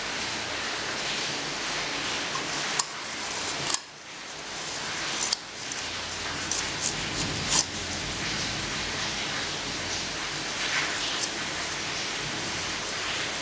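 Steel wool being crumpled and pushed into an aluminium soda-can piston: a steady scratchy rustle with a few sharper crackles.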